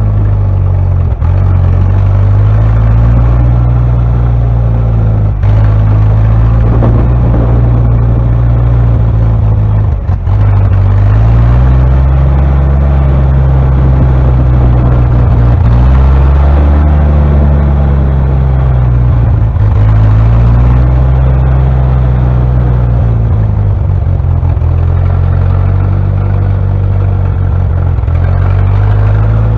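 The 1956 Jeep CJ5's Hurricane four-cylinder engine running under load as the Jeep is driven, its pitch rising and falling with the throttle. There are brief dips in loudness about a second in and about ten seconds in.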